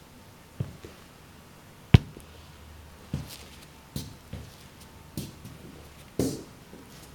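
Footsteps of Sendra cowboy boots on a ceramic tile floor: a series of hard heel knocks, about seven, at an uneven walking pace. The sharpest and loudest comes about two seconds in.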